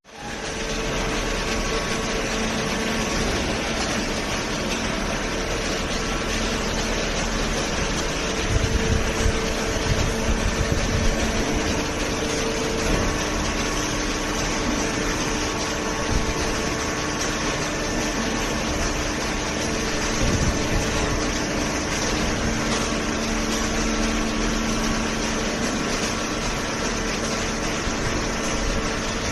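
Industrial cardboard shredder and baler line running: a continuous mechanical noise with a steady hum, and a stretch of irregular low knocks about a third of the way through.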